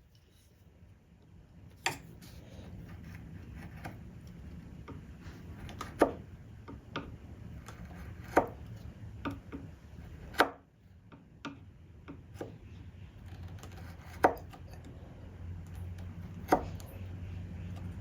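A chisel being struck as it chops deeper into the wooden leg's groove: sharp, separate knocks a couple of seconds apart, with lighter taps between.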